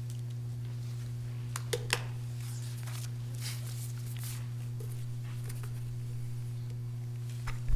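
Sheets of paper rustling and shuffling as they are handled close to a microphone, with a couple of sharp clicks about two seconds in, over a steady low hum.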